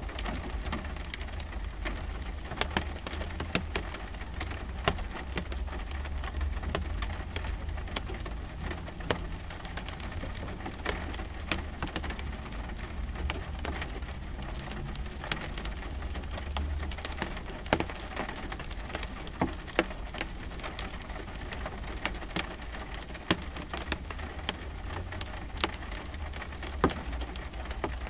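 Light rain on a car windshield, heard from inside the car: many scattered drops tick on the glass over a steady hiss. A steady low rumble runs underneath.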